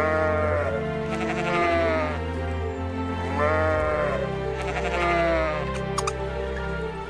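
An animal bleating several times, with quavering, wavering cries, over steady background music.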